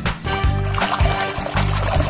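Background music with a steady, repeating bass beat.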